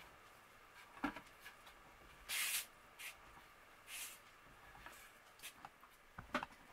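Two short hisses of spray paint being sprayed onto a cast-iron iron, about two seconds in and again about a second and a half later, the first lasting about half a second. A sharp knock comes about a second in and another near the end, with a few fainter ticks between.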